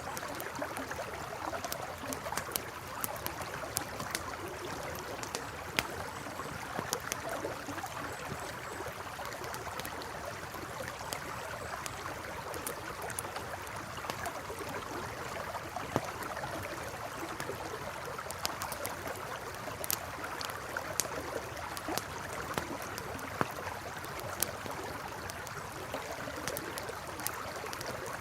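River water babbling steadily, with a campfire crackling over it in scattered sharp pops and snaps.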